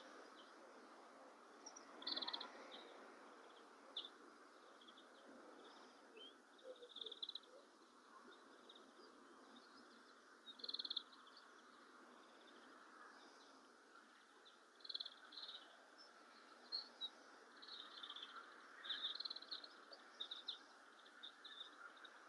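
Faint birdsong at dawn: short, high chirps and calls from small birds coming every second or few, over a quiet background hiss.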